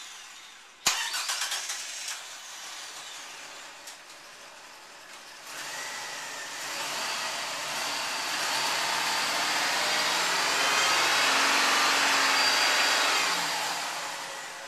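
Chrysler LHS 3.5-litre V6 running just after a Seafoam intake cleaning, burning the cleaner off. A sharp click comes about a second in; from about five seconds the engine runs up and holds louder for several seconds, then drops back near the end.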